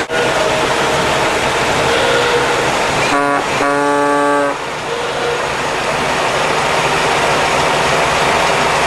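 An old car's horn tooting twice about three seconds in, a short toot and then a longer one, over the steady noise of vintage car engines running.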